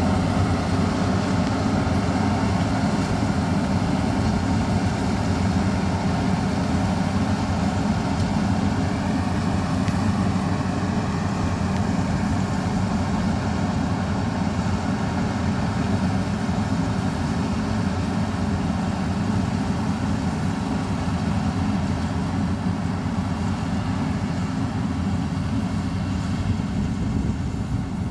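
Maxxi Bimo 102 rice combine harvester running steadily, a constant machine drone without pauses or changes in speed.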